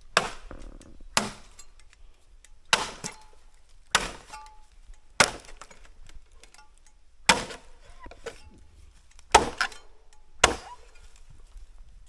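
Machete chopping into a green bamboo pole, eight hard strikes at an uneven pace of about one every one to two seconds; several strikes leave a brief ringing tone.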